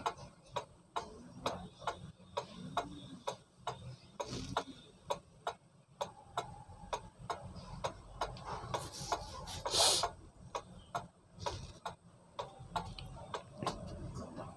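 Old pendulum wall clock ticking steadily at about two and a half ticks a second. The clock has been set running by moving it but does not keep going, and soon stops. A brief hiss a little under ten seconds in is the loudest sound.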